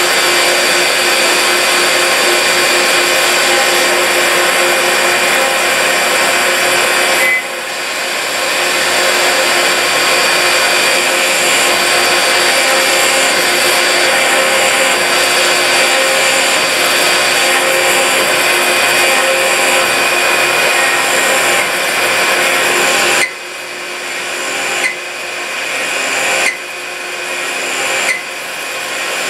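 Swiss-type CNC lathe cutting brass bar stock under flooding oil coolant: a loud, steady machining noise with a constant whine. The noise dips briefly about seven seconds in. Near the end it drops and builds again about every second and a half.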